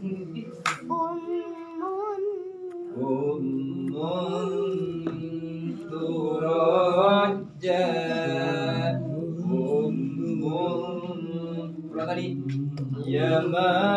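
Melodic Qur'an recitation (tilawah) chanted in the Sikah maqam, with long, wavering held notes.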